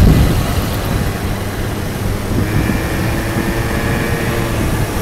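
Small scooter-moped engines running at cruising speed over a steady low rumble of the moving vehicle and wind. About halfway through, a steady engine whine joins in.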